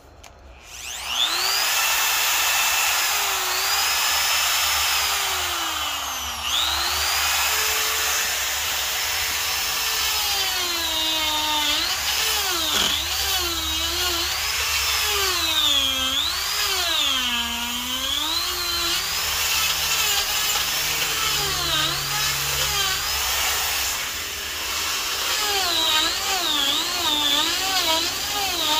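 Electric die grinder spinning up about a second in, then carving wood with a rotary burr. Its high whine sags in pitch each time the burr bites into the log and climbs again as it eases off, with a brief drop in speed about six seconds in.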